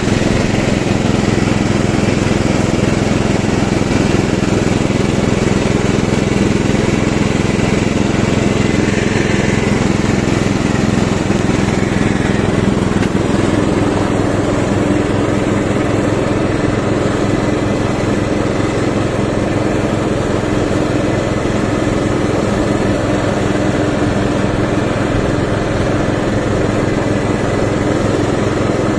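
Ride-on lawn tractor mower's 12.5 hp engine running steadily under load while mowing grass.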